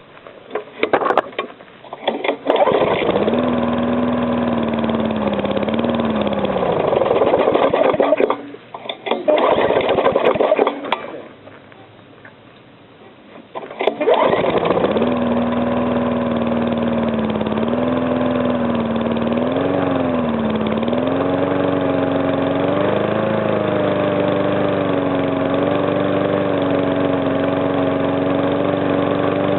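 Rebuilt Briggs & Stratton small engine being started: it catches and runs, stumbles and dies out about 8 and 11 seconds in, then is restarted about 14 seconds in and runs on steadily, its speed wavering slightly now and then. The engine was rebuilt with its piston rings rearranged to stop compression leaking past the piston, and the owner hears little of the earlier knock.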